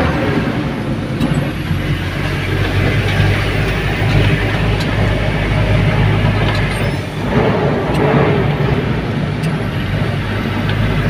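Truck engine running steadily as it drives up a mountain road, heard from inside the cab: a continuous low drone with road and rattle noise over it, easing briefly about seven seconds in.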